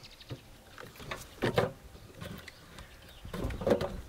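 Pieces of split firewood knocking and clattering together as they are handled from a wheelbarrow, with a loud clack about a second and a half in and a cluster of knocks near the end.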